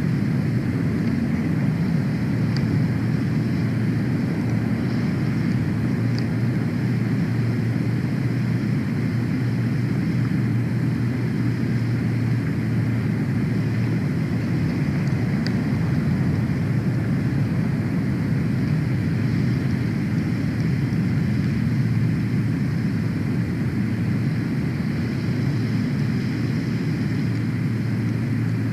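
Steady low rumble with no change in level, with a few faint high ticks now and then.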